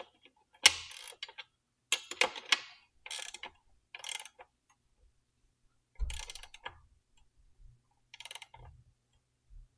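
Ratchet wrench clicking in several short, irregular bursts of strokes as the axle nut of an e-bike rear hub motor is tightened.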